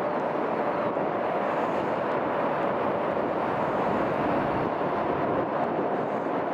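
Airbus A321 twin turbofan engines at takeoff climb power, heard from the ground as a steady rushing jet noise with a faint hum in it.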